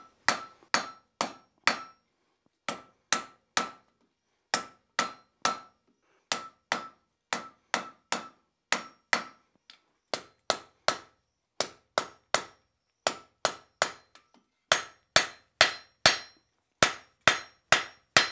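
Hand hammer striking a red-hot square bar on an anvil, knocking the sharp corners off the bar's end. The blows come about two to three a second in short runs with brief pauses, each with a short metallic ring. They get louder about 15 seconds in.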